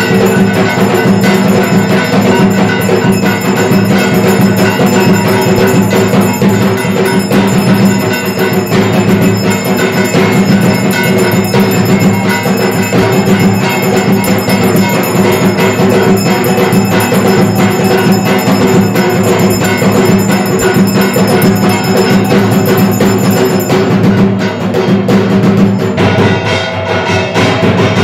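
Brass hand bell rung rapidly and continuously during aarti, over a dense layer of other percussion and some held tones.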